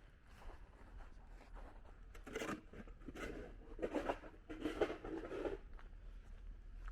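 Footsteps crunching in snow, starting about two seconds in at a steady walking pace of roughly one step every 0.8 seconds.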